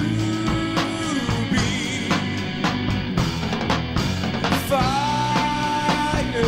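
Rock music with a steady drum beat and long held lead notes that slide into pitch, the strongest note coming in a little before the end.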